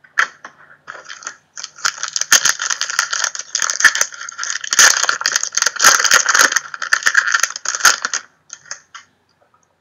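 Foil wrapper of a trading-card pack crinkling and tearing as it is ripped open by hand. It is a dense crackle that starts about a second and a half in and stops near the end, with a few lighter rustles after.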